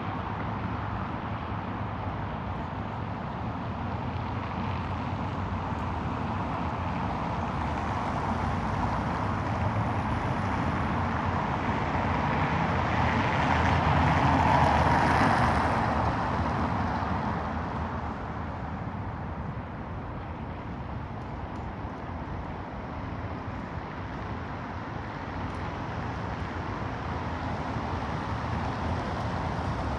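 City street traffic: a steady hum of passing cars, with one vehicle growing louder to its loudest about halfway through and then fading away.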